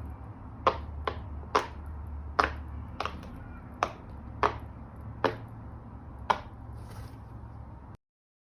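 Silicone pop-it fidget toy bubbles being pressed one at a time: about ten sharp little pops, roughly one every half second to second, over a low steady hum.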